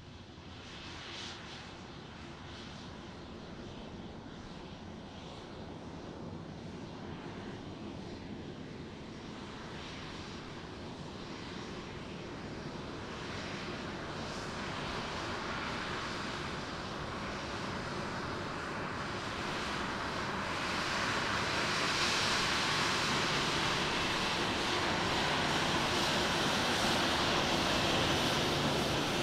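Aircraft engines growing steadily louder as the plane comes closer, a rushing roar that is loudest over the last several seconds.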